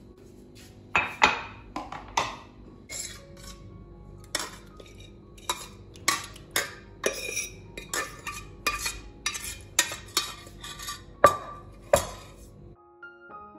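A metal spoon clinking and scraping against a steel cooking pot and a glass food container as leftover curry is scooped out. Irregular clinks and knocks come every half second or so, with plastic lidded boxes knocked on the counter, and they stop about a second before the end.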